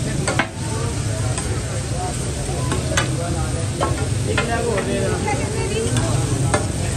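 Chicken pieces sizzling on a large flat iron tawa griddle, with a metal spatula clanking and scraping against the iron every second or so. A low steady hum runs underneath.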